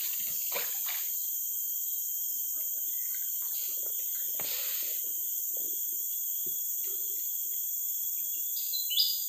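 Steady high-pitched drone of insects in forest, with a few short chirps near the end.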